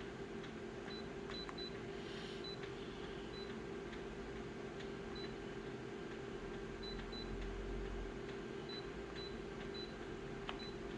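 Scattered short high beeps and soft clicks at irregular intervals over a steady electrical hum, typical of controls being clicked on an editing device while an image is resized and moved.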